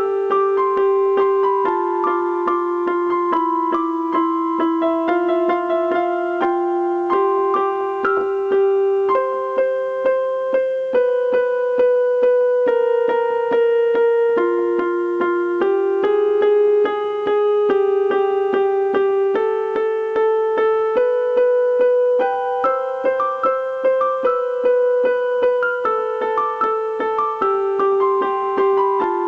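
Piano-voiced keyboard playing a slow, gentle melody, each note held for a second or two over steadily repeated accompanying notes.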